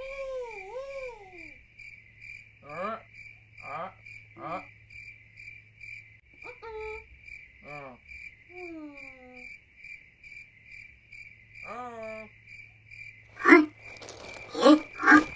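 Cricket sound effect chirping steadily at about four chirps a second, with short wordless voice sounds that glide up and down in pitch at intervals. Near the end come a few loud, abrupt croaks like a frog's or toad's.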